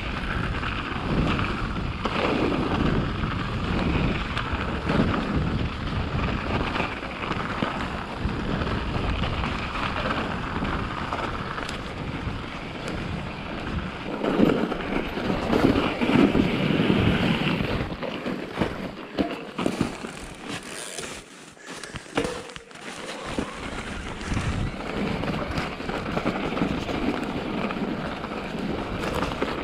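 Mountain bike being ridden over a snowy trail: tyre and trail noise with bumps and rattles from the bike, and wind buffeting the camera microphone. The noise eases off for a few seconds about two-thirds of the way through.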